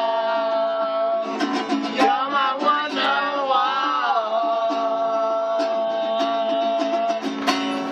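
A man and a woman singing together to a strummed small acoustic guitar, with long held notes over steady strumming.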